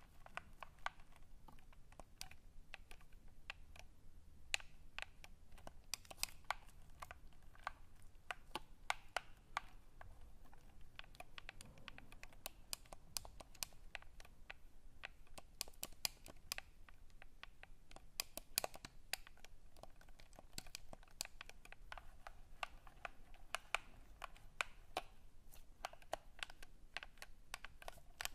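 Close-miked ASMR clicking and tapping: quick, irregular sharp clicks, several a second, at times sounding like typing on a keyboard.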